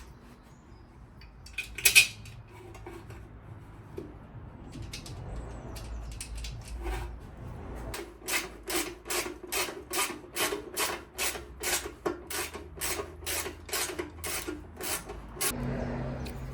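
Hand filing: a steady run of even rasping strokes, about three a second, through the second half. A single sharp knock about two seconds in.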